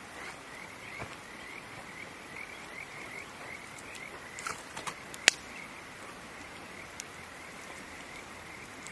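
Campfire crackling with a few sharp pops, the loudest about five seconds in. Underneath are a steady high-pitched insect drone and a chirping call repeating two to three times a second.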